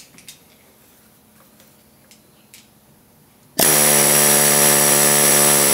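Pneumatic air hammer running in one steady, continuous burst that starts abruptly about three and a half seconds in, seating a transmission's front ball bearing against the case. Before it there are only a few light clicks of metal parts being handled.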